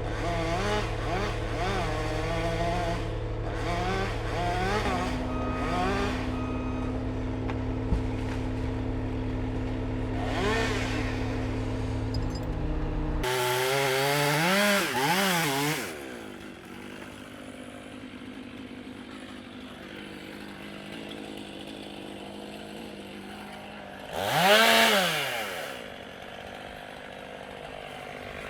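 Chainsaw revving up and down in short bursts several times, the loudest near the end. A steady engine runs underneath through the first half and stops abruptly about 13 seconds in.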